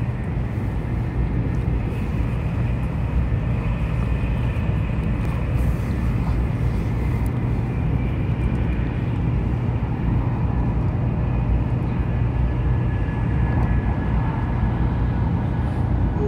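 Steady running noise heard inside a Taiwan High Speed Rail train travelling at speed: an even low-pitched drone under a hiss, with no breaks or changes.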